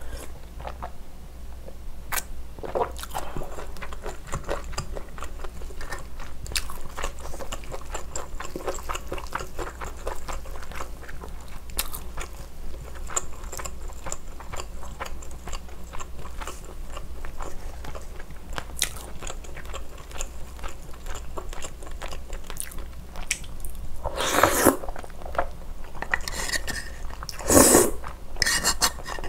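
Close-miked eating sounds of cream pasta: steady wet chewing with small clicks and smacks, then a few louder slurps of noodles in the last five seconds.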